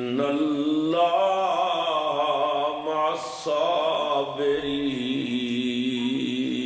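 A man's voice reciting the Quran in a slow, melodic chanting style, holding long ornamented notes with a short break about three seconds in.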